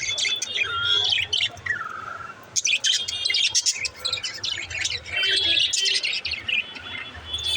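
Budgerigars chirping and chattering in quick, overlapping high calls, with a short lull about two seconds in.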